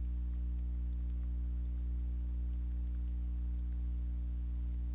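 Light, irregular clicks of a pen stylus tapping a tablet while handwriting, over a steady low hum.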